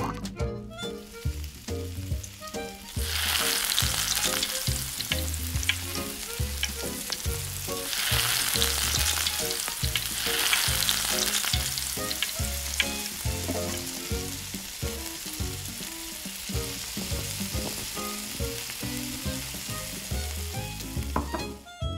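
Battered chicken pieces deep-frying in hot oil in a miniature steel pot, sizzling and crackling. The sizzle starts about three seconds in and swells louder a few times.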